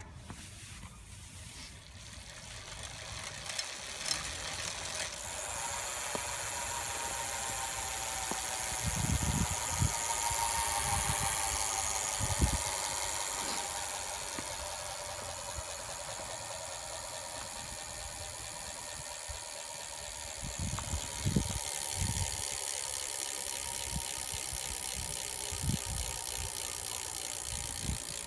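Shimano Dura-Ace C24 rear hub freewheeling as the wheel spins, its freehub pawls giving a continuous ratchet buzz. The buzz builds up over the first few seconds, is loudest around ten seconds in, eases off, then picks up again a little past twenty seconds, with a few low knocks from the wheel being pushed.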